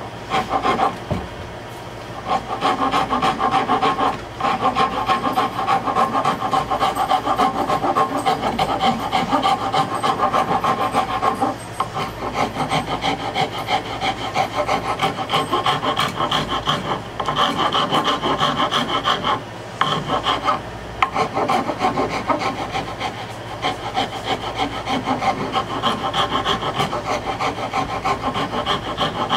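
A metal hand file rasping back and forth along the edge of an oak board, shaping it. The strokes come quickly and steadily, broken by a few brief pauses.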